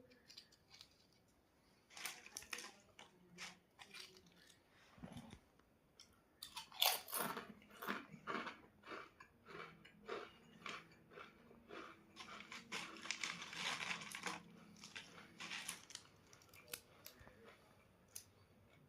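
Close-up crunching and chewing of crispy packet snacks, a few scattered bites at first, then a long dense run of crunches about six seconds in that thins out near the end.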